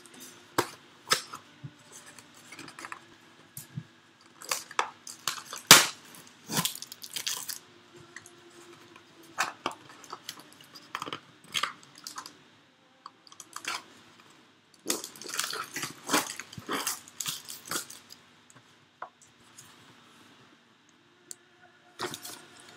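A taped cardboard box being worked open by hand: irregular crackling, tearing and rustling of cardboard and tape. The loudest is a sharp crack about six seconds in.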